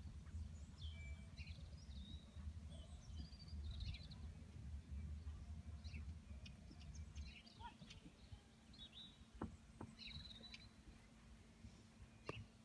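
Quiet outdoor ambience: small birds chirping on and off over a low wind rumble on the microphone that stops about seven seconds in, with a few faint knocks near the end.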